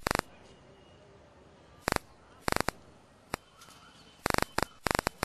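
Sharp, dry clicks, mostly in quick clusters of three to five, coming at uneven intervals about eight times.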